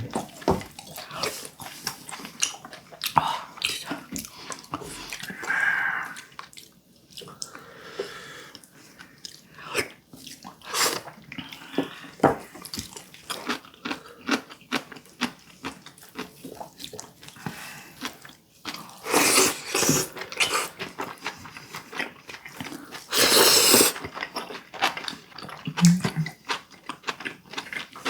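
Close-up mukbang eating sounds: chewing and biting boiled duck meat, with frequent small clicks of utensils and dishes. Two longer hissing bursts come in the second half.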